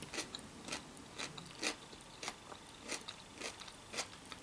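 A person chewing a mouthful of Greek salad with fresh vegetables, giving soft, faint crunches about twice a second.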